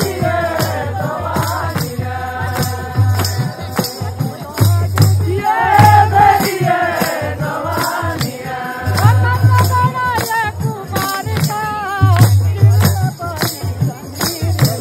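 Pahari natti folk music: a voice singing a wavering melody over a repeating low drum beat with jingling percussion.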